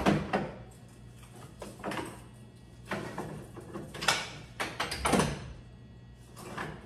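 Several sharp metal clanks and rattles from a John Deere corn header's row unit being stripped by hand, as its gathering chains and parts are knocked loose and lifted out, over a faint steady low hum.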